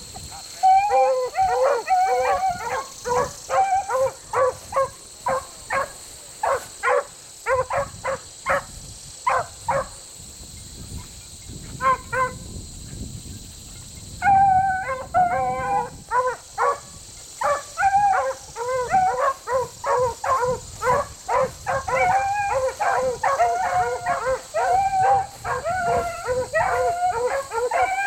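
Beagles baying on a rabbit's track: a rapid string of pitched, howling barks that breaks off for a few seconds about ten seconds in, then starts up again and keeps going.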